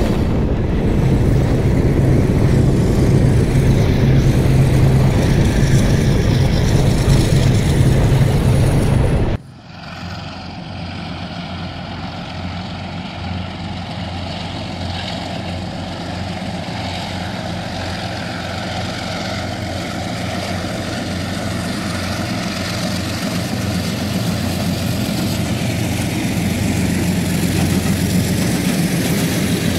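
KiwiRail DX-class diesel-electric locomotive engines running, heard first close alongside as a loud, steady drone. About nine seconds in the sound cuts abruptly to a quieter, more distant engine drone that slowly grows louder as the train draws nearer.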